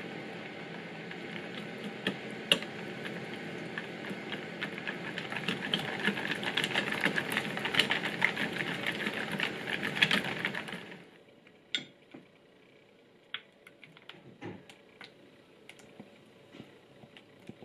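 Wire whisk beating thick okara cake batter in a ceramic bowl: rapid clicking of the wires against the bowl, growing louder, then stopping suddenly about eleven seconds in. After that, only a few faint clicks.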